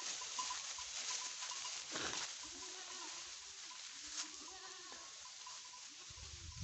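Goats bleating, several short wavering calls one after another, from a herd of kids and adult goats grazing together. A brief low thump comes near the end.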